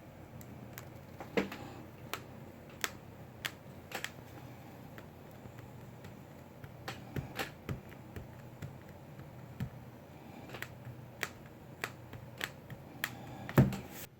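Irregular light clicks and taps on a tablet, about a dozen spread unevenly, with one louder knock near the end, over a low steady hum.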